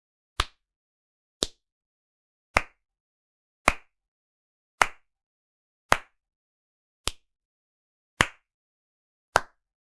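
Slow sarcastic hand clapping by one person: single sharp claps evenly spaced about a second apart, nine in all, with silence between them.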